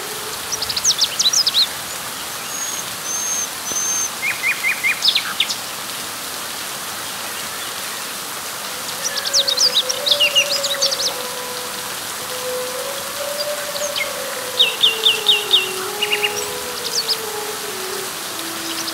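Steady rain falling on leaves, with birds chirping over it in scattered short calls, including two quick runs of four or five repeated notes. A faint wavering low tone runs through the second half.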